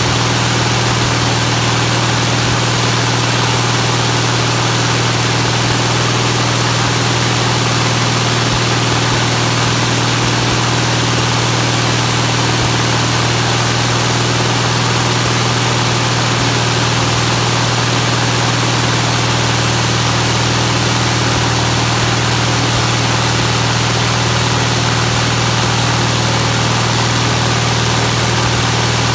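UL Power UL520iS six-cylinder, fuel-injected aero engine running steadily at a constant speed on a ground break-in run, driving a Culver white maple pusher propeller. It holds a strong, steady low hum under a wash of propeller and air noise.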